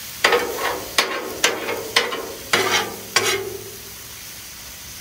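A metal spatula strikes and scrapes the steel plate of a Blackstone griddle six times over about three seconds, each with a short metallic ring. Liver and onions sizzle steadily underneath.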